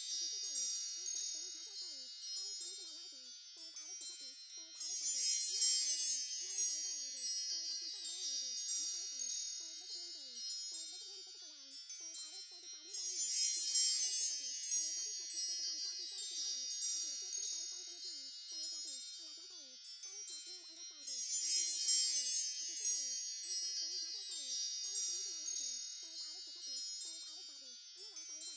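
Tinkling, shimmering chimes like wind chimes, a continuous high sparkle that swells louder about every eight seconds as the loop repeats.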